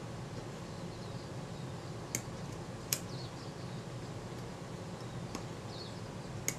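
Small, sharp metallic clicks of tweezers working the mechanism of a Synchro-Compur leaf shutter, two clear ones about two and three seconds in and fainter ticks later, over a steady low hum.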